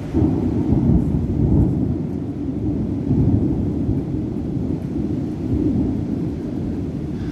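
Thunder from a lightning strike: a rumble that starts suddenly, is loudest in the first second and a half, swells again about three seconds in, then rolls on and slowly fades.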